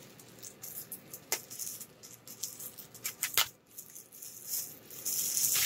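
A bubble-wrapped item being cut open with scissors and handled: scattered small clicks and rustles of plastic, a few sharper snips around the middle, then louder crinkling of the wrap near the end.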